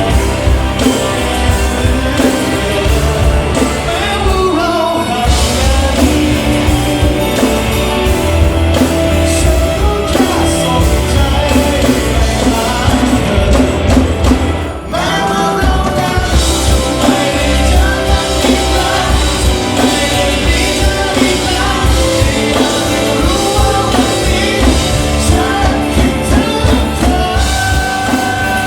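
A rock song with a singer over a full band, guitar and drums with a steady beat; the music drops out briefly about fifteen seconds in, then comes back.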